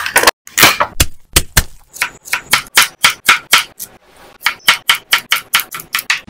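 Rapid, even strikes on a kitchen cutting board, about five a second, with a brief lull about four seconds in.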